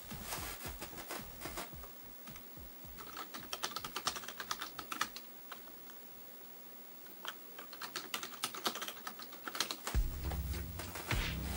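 Typing on a computer keyboard: scattered keystrokes, then quick runs of key clicks while a login password is entered. A steady low hum comes in near the end.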